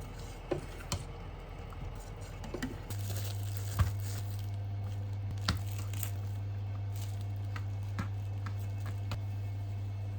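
Light clicks and knocks of small household objects being handled, with a few rustles. About three seconds in, a steady low electrical hum comes on.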